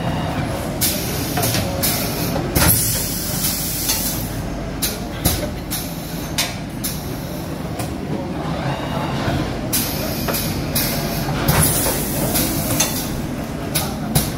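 Automatic sock boarding and pressing machine running: a steady mechanical hum with repeated sharp clacks from its pneumatic grippers and cylinders, and a few short hisses.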